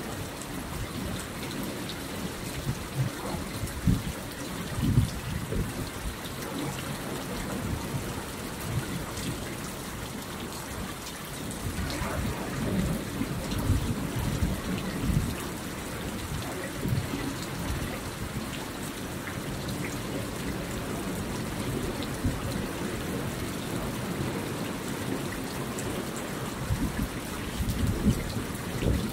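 Water seeping and dripping from a moss-covered cliff face into a shallow pool: a steady, rain-like patter of many drops on the water, over irregular low rumbles.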